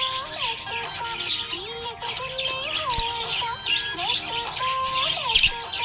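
Budgerigar chirping, many short high chirps in quick succession, over the melody of a music track.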